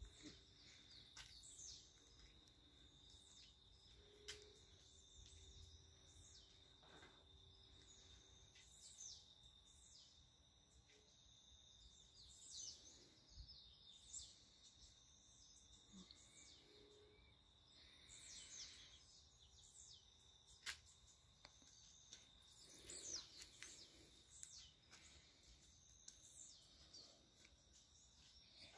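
Faint morning birdsong: many small birds chirping and calling on and off, over a steady high-pitched tone. A single sharp click sounds about two-thirds of the way through.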